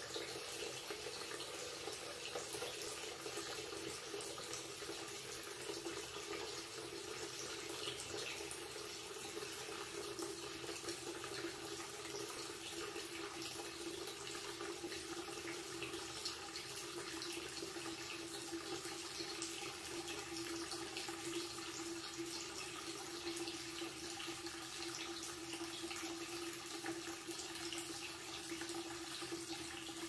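Thin stream of tap water pouring from a wall-mounted spout into a ceramic washbasin and running away through the open drain: a steady splashing hiss. Under it is a low hollow tone that wavers at first and holds steady in the second half.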